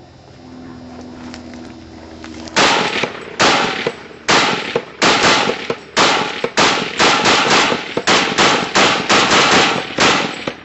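Semi-automatic Browning 1919A4 fired rapidly: about twenty shots beginning a little over two seconds in, the pace quickening to about three a second.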